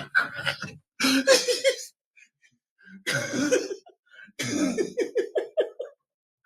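A man's voice in short bursts of non-word sounds, coughing or laughter-like, the last burst breaking into quick repeated pulses.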